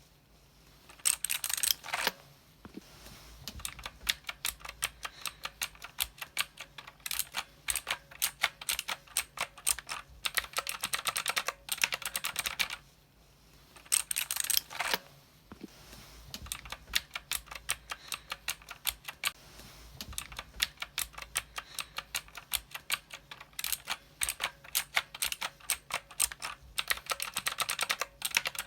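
Typing on a mechanical keyboard: fast runs of sharp key clicks, broken by short pauses, with a few louder bursts of keystrokes.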